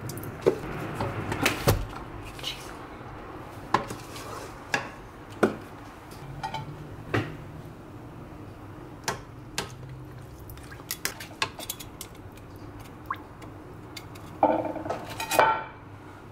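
Kitchenware clinks and knocks against a rice cooker's inner pot, scattered irregularly, with a louder ringing clatter about a second before the end.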